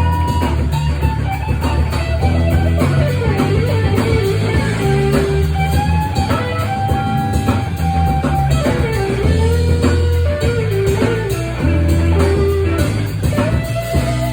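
Live electric blues: an electric guitar plays a lead line of sustained, bent notes over bass guitar.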